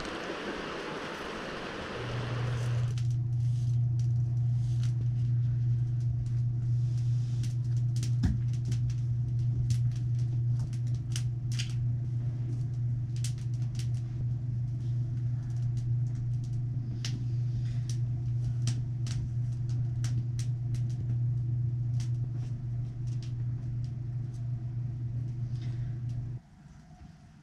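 A river rushes briefly, then a wood fire crackles in an open fireplace, with sharp irregular pops over a steady low hum that stops suddenly near the end.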